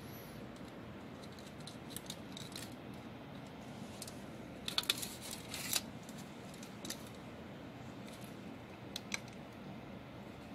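Handling noise: fingers turning and tapping small cast relief objects on a cloth, giving scattered light clicks, with a quick cluster of sharper clicks about five seconds in, over a faint steady hiss.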